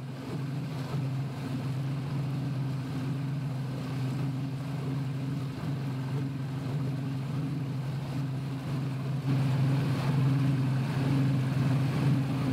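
Mercury 225 outboard motor running steadily with the boat underway: a low, even drone over the rush of water and wind. It gets a little louder about nine seconds in.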